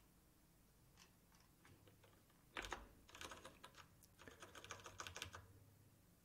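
Typing on a computer keyboard: a few faint key presses, then a louder keystroke about two and a half seconds in, followed by a quick run of keystrokes lasting a couple of seconds.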